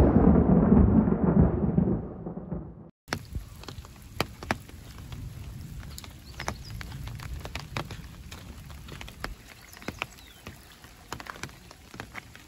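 A loud rumble of thunder that dies away over about three seconds. After a brief silence comes light rain, with scattered drops pattering and dripping.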